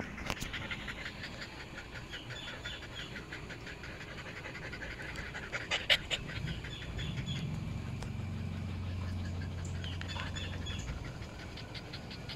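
Chow chow puppies panting quickly and rhythmically, out of breath after playing. A few sharp clicks about six seconds in.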